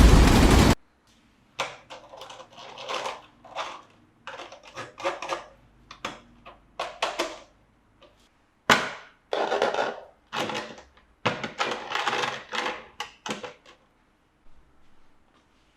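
Hands unpacking a model train set, with irregular clicks, crinkles and rustles of cardboard and plastic packaging being opened and handled. A loud steady noise cuts off abruptly under a second in.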